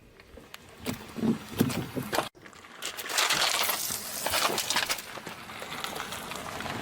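Objects cracking and crunching as a car tyre rolls over and crushes them: a few scattered snaps at first, then, after an abrupt cut, a dense run of crackling and crunching.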